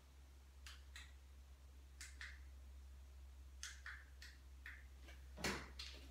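Faint small clicks and rustles of a person shifting on a chair, then a louder rustle about five and a half seconds in as she gets up from it, over a low steady hum.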